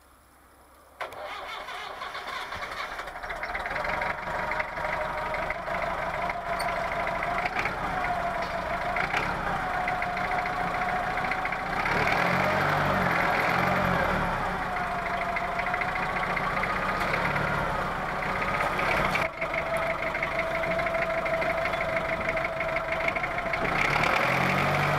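Perkins diesel engine of a Lansing Bagnall forklift starting about a second in and then running, its speed rising and falling several times.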